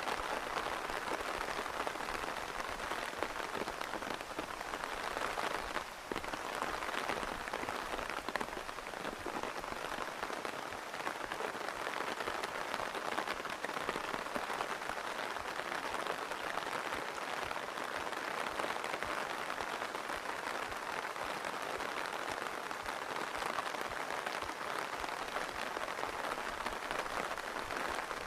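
Steady rain falling, an even, dense patter of drops on surfaces that holds at the same level throughout, with a brief slight lull about six seconds in.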